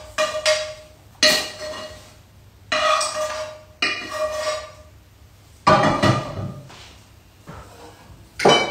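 Dishes and cutlery being handled and set down: a series of sharp clinks and knocks, several ringing briefly with a clear tone, spaced about a second apart.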